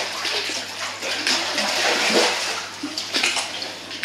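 Koi pond water splashing and sloshing irregularly as a person moves about lying in it.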